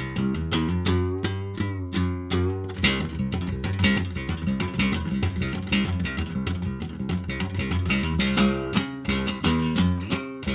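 Guitar music: quickly picked and strummed guitar notes over a steady low bass part.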